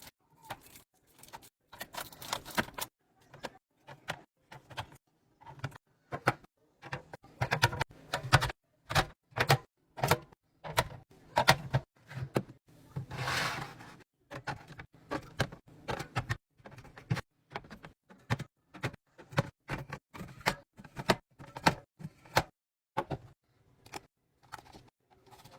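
Rapid clicks, taps and clatter of food packages and containers being handled and set down during a pantry and fridge restock, with a brief rustle about halfway through.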